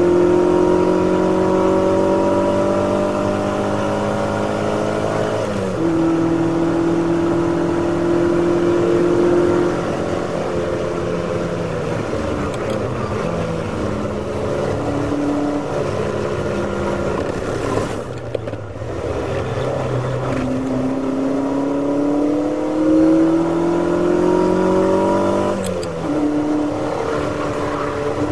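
A Ferrari V8 race car's engine heard from inside the cockpit at racing speed. The revs climb and then drop sharply about five and a half seconds in, and run level for a while. They ease off around eighteen seconds in, then climb again before another sharp drop near the end.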